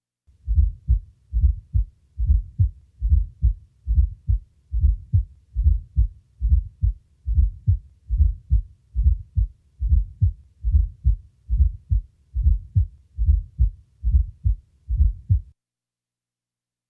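Heart sounds recorded at the cardiac apex of a patient with heart disease: a low-pitched fourth heart sound (S4, atrial gallop) just before each first heart sound, followed by the second sound, repeating in a steady rhythm. The S4 comes from atrial contraction into a ventricle with decreased compliance or increased diastolic volume. The beats stop shortly before the end.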